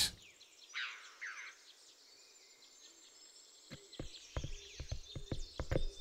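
Quiet mountain ambience with a faint, high insect and bird hiss, and a short bird call about a second in. From about four seconds in comes a quickening run of sharp knocks: Iberian ibex hooves clattering on rock as the animals walk.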